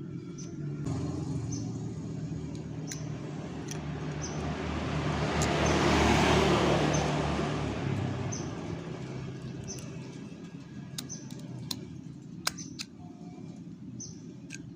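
A road vehicle passing by, its noise rising to a peak about six seconds in and then fading, over a steady low engine hum. A few sharp clicks sound now and then.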